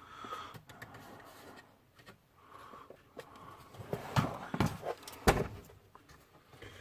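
Scattered clicks and knocks of an opened Acer Aspire desktop computer's case and parts being handled, the loudest three knocks coming about four to five and a half seconds in.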